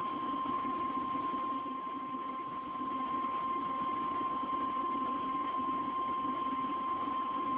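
Emergency Alert System attention tone: a single steady high-pitched tone held without a break, over a rough background hiss and hum from the broadcast.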